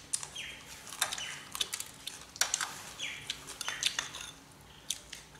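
Tableware clicking and clinking as chopsticks and spoons knock against bowls and a metal serving tray. Short high chirps from a bird come through every second or so.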